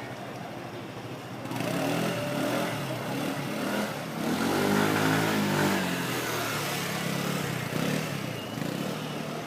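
A motor engine passing by: it grows louder about a second and a half in, its pitch bends up and then down as it passes near the middle, and it fades towards the end.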